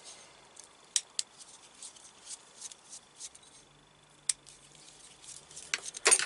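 Sharp clicks of small hand tools working on wiring: a few separate clicks, then a quick cluster of louder ones near the end.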